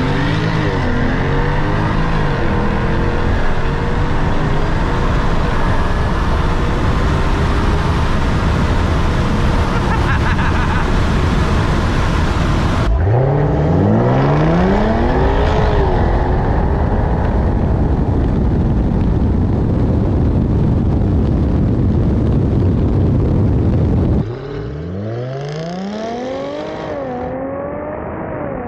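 Supercharged Jaguar F-Type engines at full-throttle acceleration, pitch climbing through the gears and dropping back at each quick upshift, over heavy wind and road noise. The sound changes abruptly twice, with a fresh run of rising gear pulls about thirteen and twenty-four seconds in.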